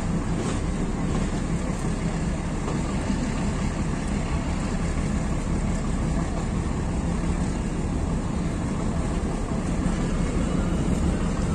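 Metre-gauge passenger train in motion, heard from aboard a coach: a steady low rumble that does not change.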